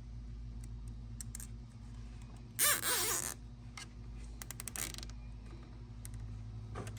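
Small mechanical handling sounds from working on the handlebar throttle parts: a short creak about two and a half seconds in, then a quick run of clicks, over a steady low hum.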